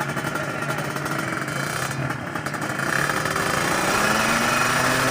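Motorcycle engine running at a low, steady speed, its pitch rising slowly and growing louder over the last second or so.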